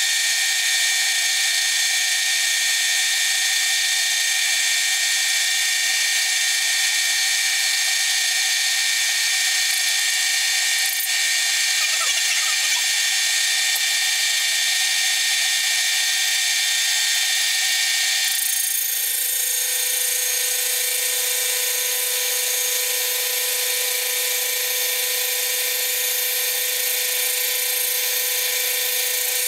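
Horizontal milling machine's arbor-mounted cutter running and cutting a piece of bronze: a steady high-pitched machining whine. About two-thirds of the way through, a steady lower hum joins in and the cutting grows brighter.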